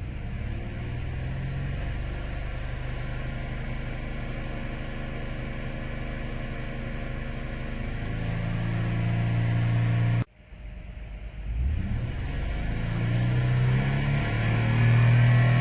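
2007 Saturn Vue engine running steadily with a cylinder misfire (codes P0300, P0302, P0304), the fault traced to a bad number-four fuel injector. It gets louder about eight seconds in, cuts off abruptly about ten seconds in, then comes back and rises again.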